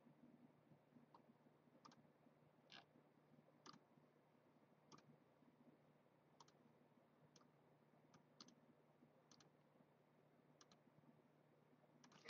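Near silence with faint, scattered clicks of a computer keyboard and mouse, roughly one a second, as entries are typed into a spreadsheet. A few louder clicks come in quick succession at the very end.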